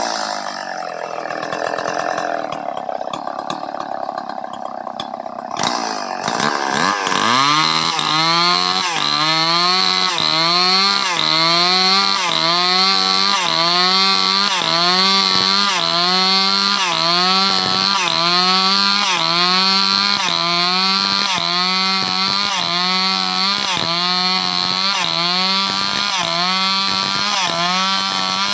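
Stihl 070 two-stroke chainsaw running at low speed, then revving up about six seconds in and cutting through sengon wood, ripping it lengthwise. Under load its engine speed dips and recovers about once a second.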